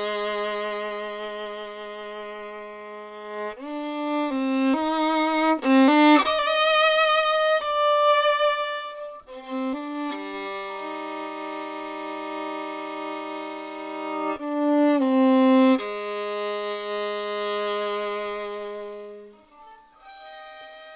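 Solo violin playing long held notes, often two strings at once, with wavering higher notes in the middle; it fades out near the end.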